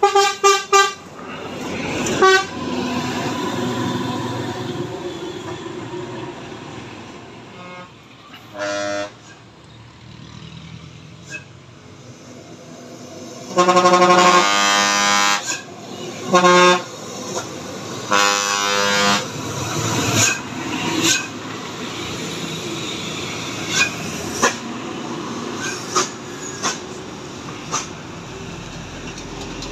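Bus and truck horns sounding over the noise of passing heavy diesel vehicles. A quick string of toots comes right at the start. About halfway through comes one long, loud horn blast, followed by two shorter blasts a few seconds later.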